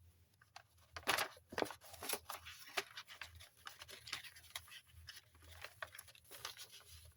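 Soft paper rustling with scattered light taps and scrapes: journaling paper being handled and slid in and out of a paper envelope pocket in a handmade junk journal.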